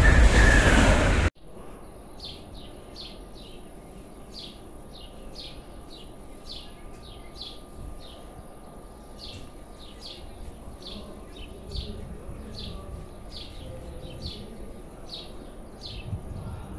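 A train rushing past, loud, cutting off abruptly just over a second in. Then a small bird chirping over and over, about two short falling chirps a second, over a faint steady whine.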